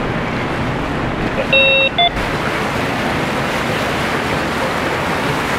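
Azimut motor yacht passing slowly close by: a steady rush of its engines and churning wake water. About one and a half seconds in, a short two-part tone sounds over it.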